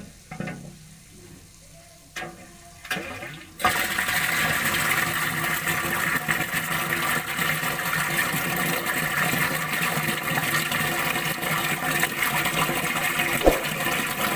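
Water gushing into a water tank as the pump fills it, starting suddenly about three and a half seconds in after a quiet stretch with a couple of soft knocks.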